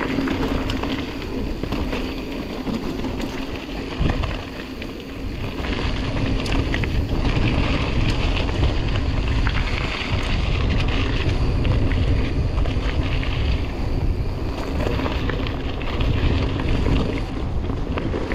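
Wind buffeting the camera microphone on a fast mountain-bike descent down singletrack, with tyre noise and occasional clicks and knocks from the bike over the trail. The low wind rumble gets heavier about five or six seconds in.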